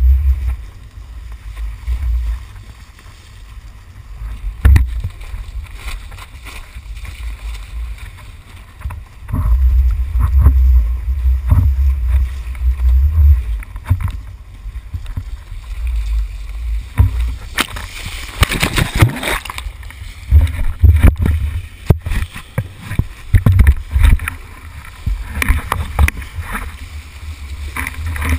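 Wind buffeting an action camera's microphone in gusts, with water rushing and splashing around a kiteboard planing through chop. Sharp slaps of spray hit the camera now and then, with a longer burst of splashing about eighteen seconds in.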